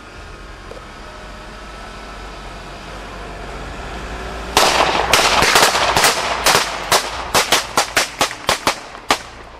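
A steady vehicle hum, then about halfway in a rapid burst of gunfire followed by about ten single shots, roughly three a second, thinning out near the end: shooting at a pursuing car.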